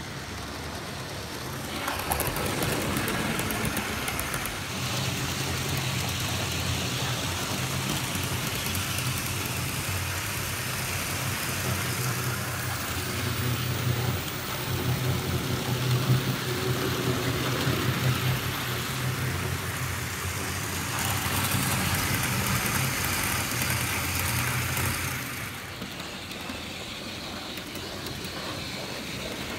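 O gauge model locomotives running on the track: a steady electric-motor hum with the noise of metal wheels rolling on the rails. It is louder for most of the stretch as trains pass close, with a few sharp ticks in the middle, and drops back near the end.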